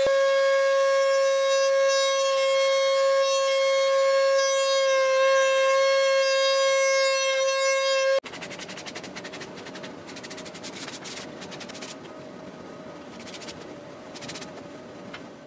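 A wood router's motor whines at a steady high pitch with a bit dip as the straight bit cuts into plywood, then stops abruptly about eight seconds in. Quieter, scratchy, irregular strokes of hand sanding on a wooden edge follow.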